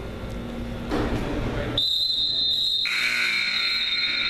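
A long, shrill, steady tone in a gym, of the kind a referee's whistle or the scoreboard buzzer makes. It starts about two seconds in and holds to the end, with a lower second tone joining about a second later. It follows a short burst of noise about a second in.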